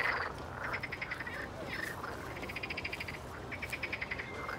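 A chorus of pond frogs croaking: repeated trills of rapid pulses, each under a second long, coming one after another and overlapping.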